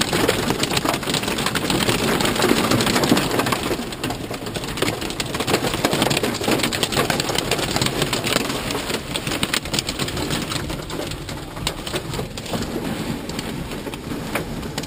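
Heavy storm rain pelting the car's roof and windshield, heard from inside the car as a dense, steady patter of countless drops, heaviest in the first few seconds.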